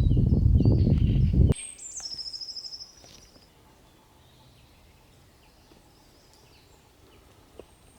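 Songbirds in a quiet forest: a fast, high trill that steps down in pitch a couple of seconds in, with faint chirps around it. A loud low rumble covers the first second and a half and cuts off suddenly.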